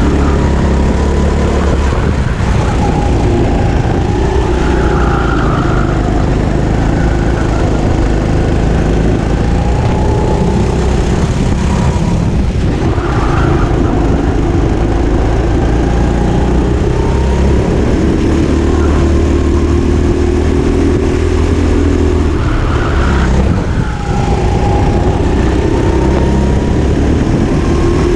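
Go-kart engine running hard, heard from on board, its revs climbing on the straights and dropping as it slows for corners, over and over through the lap.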